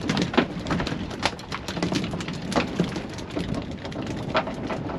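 Irregular sharp taps and slaps, a few each second, over a steady wash of wind and sea noise: freshly caught mackerel flapping against the fibreglass boat while being unhooked.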